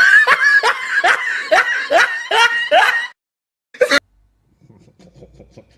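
A person laughing hard in a quick run of short rising bursts, about three a second, that stops about three seconds in. A brief loud burst follows just before the fourth second, then only a faint sound.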